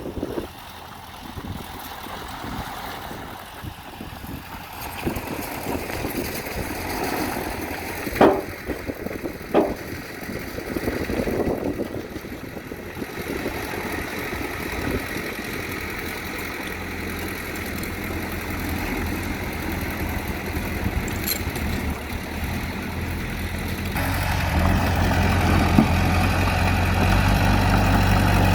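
Bulldozer's diesel engine running, with two sharp knocks about eight and nine and a half seconds in; near the end the engine note becomes louder and steady.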